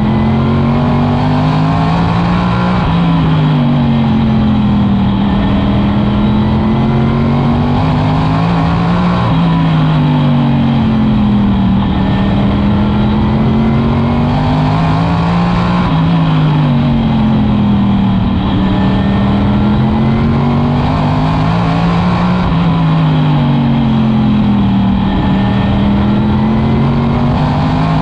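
Modified race car's V8 engine running laps on a short oval, its pitch dropping as it lifts into each turn and climbing again down each straight, about every six and a half seconds.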